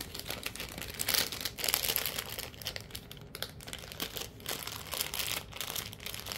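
Crinkling and rustling of a resealable plastic clay pouch being handled, an irregular run of crackles that is loudest between about one and two seconds in.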